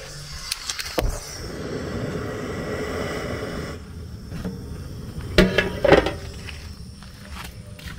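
Cookware being handled on a gas stove: a rushing noise for about three seconds, then two loud metal clanks about half a second apart.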